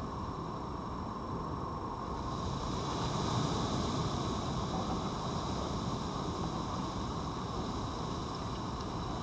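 Steady background noise with a vehicle passing: a wash of sound that swells a couple of seconds in and slowly fades again, over two faint steady high tones.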